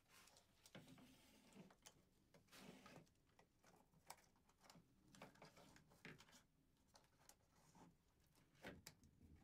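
Near silence, with faint scattered clicks and rustles of a Bessey frame clamp being handled and fitted around a glued-up mitered wooden box frame.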